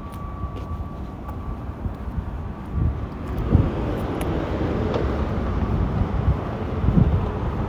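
Downtown street traffic: a broad rush of vehicle noise that builds from about three seconds in and stays up, with a few low thumps. A faint steady high whine runs through the first couple of seconds.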